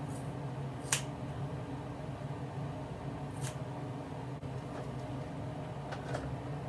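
Scissors snipping through the ends of a straight-hair wig: two sharp snips, about a second in and again about two and a half seconds later, with fainter clicks near the end, over a steady low hum.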